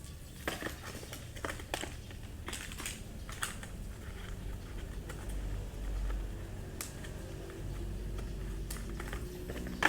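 Light, irregular clicks and taps with a little crinkling, made by small plastic electronic parts and their packaging being handled.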